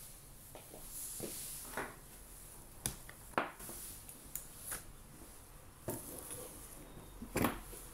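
Quick-release bar clamps with plastic trigger grips being handled on a wooden table: several sharp clicks and knocks of the clamps, the loudest near the end, with some rustling in between.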